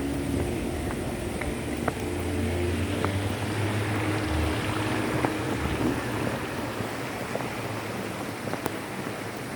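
Steady rush of falling water, with a low engine-like hum underneath that fades out about halfway through.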